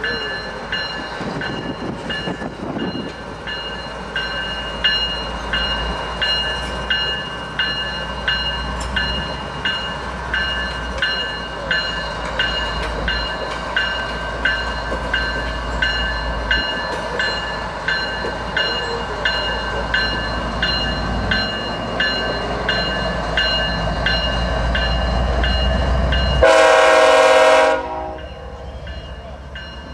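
Norfolk Southern 8102, a GE ES44AC diesel locomotive, rolling slowly with its bell ringing steadily, a bit more than once a second, over a low engine rumble. Near the end it sounds one short horn blast of about a second and a half.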